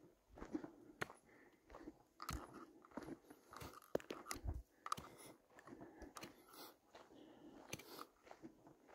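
Quiet footsteps crunching on a dirt trail at a walking pace, about one step a second.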